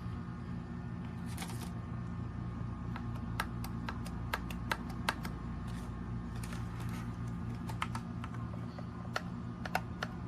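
Keys on a mechanical keyboard fitted with a PBT space bar keycap being pressed, giving irregular sharp clacks a couple of times a second, over a faint steady hum.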